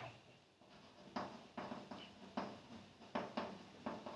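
Chalk writing on a blackboard: a string of short, faint taps and scrapes, one per stroke, starting about a second in.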